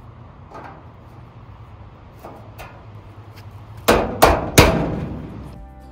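Three quick blows of a rubber mallet tapping a plastic wheel insert into the corner of a sheet-metal grill cabinet, the steel panel ringing briefly after each strike. A few faint clicks come first as the insert is set in place.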